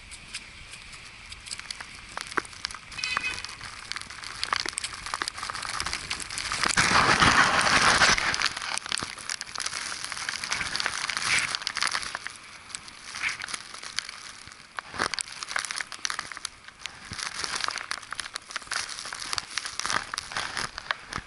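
Footsteps crunching in snow, an irregular run of crackly steps, with a louder rush of noise from about six and a half to eight and a half seconds in.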